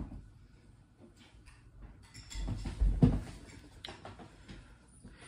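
Handling noise: rustling, small clicks and knocks as a person moves about and picks up a small model locomotive, with a dull thump about three seconds in.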